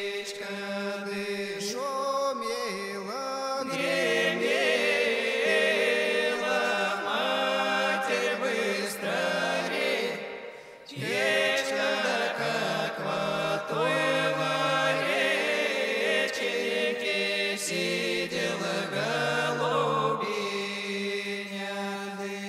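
Chant-like vocal music: voices singing long, bending notes, with a brief break about ten and a half seconds in before the singing resumes.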